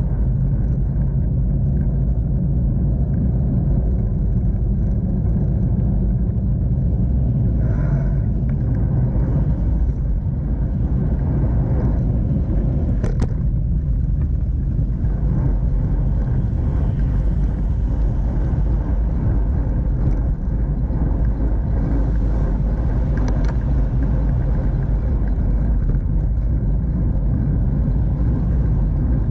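Steady low rumble of wind and road noise on the microphone of a camera riding on a moving bicycle, with traffic on the street alongside. Two brief sharp clicks come about halfway through and again a little later.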